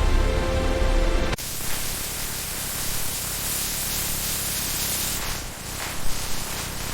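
Background music with a deep bass and a held note cuts off abruptly about a second in. A steady hissing noise follows, with a few louder rustles near the end.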